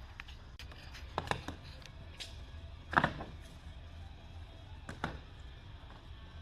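Scattered knocks and clicks of a cardboard shipping box being opened and handled, the loudest knock about three seconds in, over a steady low hum.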